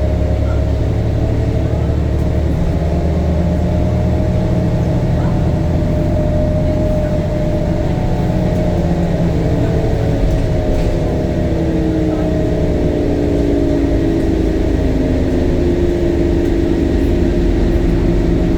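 Temsa Avenue LF city bus with a DAF Euro 5 diesel engine and ZF gearbox, heard while driving: a steady low engine rumble with a whine that slowly rises and falls in pitch as the bus changes speed.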